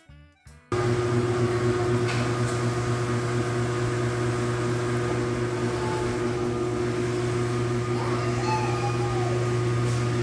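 A snippet of jazz music that stops under a second in, then a steady machine hum in a small room: a strong low drone with a couple of higher steady tones and a hiss, from the laundry room's machines and ventilation.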